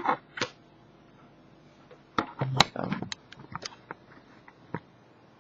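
Irregular keystroke clicks on a computer keyboard, a few near the start and a longer scatter from about two seconds in, with a brief low hum about two and a half seconds in.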